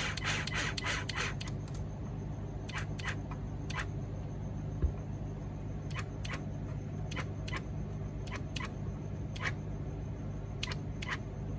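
A screwdriver clicking as it drives the screws that hold the extension side plates to an ASI BAC8000 motor controller: a quick run of clicks in the first second and a half, then single sharp clicks every half second to a second, with a dull knock about five seconds in.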